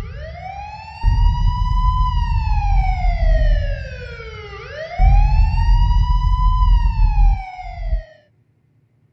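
Emergency-vehicle siren in a slow wail, its pitch rising and falling twice, over a heavy low rumble; both cut off abruptly about eight seconds in.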